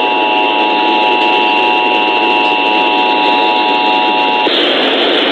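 Emergency Alert System two-tone attention signal broadcast over the radio: a steady, unchanging electronic tone over radio hiss, cutting off suddenly about four and a half seconds in, after which only the hiss remains.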